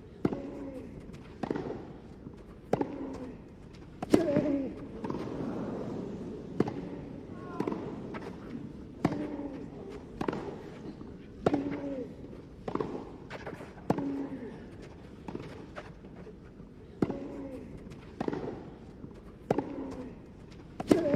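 Tennis rally: racket strikes on the ball about every second and a quarter, many followed by a player's short falling grunt.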